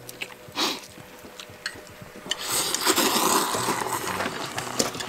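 Eating noises at the table: scattered light clicks, then a slurp lasting about two seconds from a little past two seconds in.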